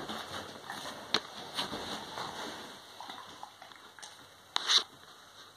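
Dogs mouthing and scuffling on a bed, with wet, sloppy mouth sounds, a few sharp clicks and a louder double click about four and a half seconds in.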